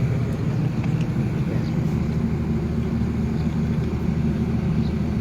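An engine running steadily at constant speed, giving an even low hum.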